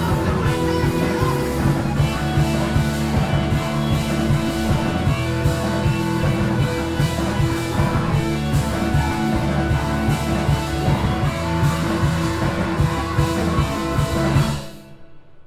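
Rock band playing live on guitar and drum kit, then stopping abruptly about a second before the end as the song finishes.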